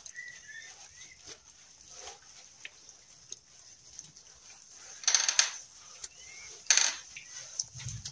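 Hands and a wet cloth smearing cow-dung plaster onto a mud wall: soft wet rubbing and scraping, with two louder wet swipes about five and seven seconds in.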